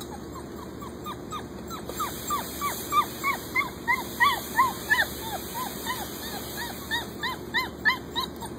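A puppy whimpering and yelping in a rapid run of short, high, rising-and-falling cries, about three a second, louder in the middle of the run.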